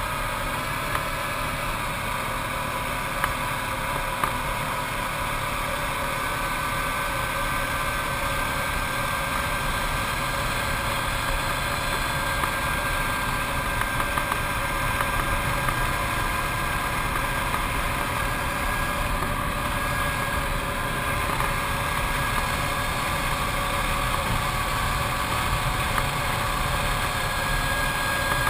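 Arctic Cat TRV 1000 ATV's V-twin engine running steadily while riding, with a faint whine that climbs slowly in pitch over the second half.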